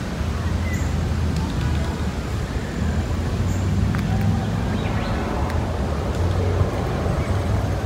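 Outdoor park ambience: a steady low rumble of road traffic, with faint voices in the background.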